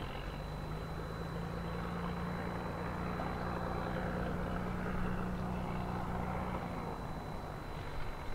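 Piper Turbo Arrow IV's turbocharged six-cylinder engine and propeller running at low taxi power, a steady drone that swells a little in the middle. Its steady engine tone fades out about seven seconds in.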